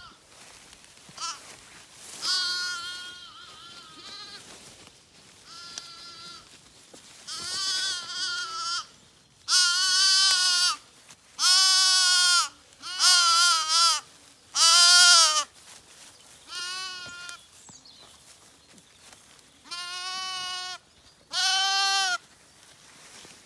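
Zwartbles lambs bleating: about a dozen separate calls with a wavering pitch, some short and some drawn out, the loudest coming thick and fast through the middle.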